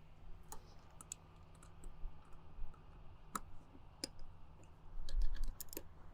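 Irregular light clicks and taps of a hand tool and plastic intake parts as the intake tube and air box of a Jeep JL's 3.6L engine are fastened back down, with a dull bump about five seconds in.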